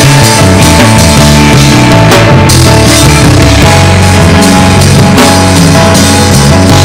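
Loud praise-and-worship band music: drum kit, bass and guitar under held chords.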